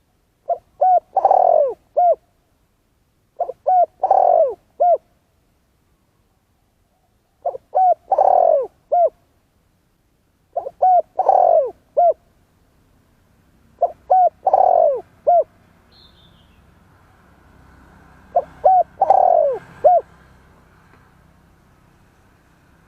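Spotted dove cooing in six repeated phrases a few seconds apart. Each phrase is a couple of short coos, one long falling coo and a short closing coo. A faint low hum rises under the later phrases, and a brief high chirp comes in near the middle.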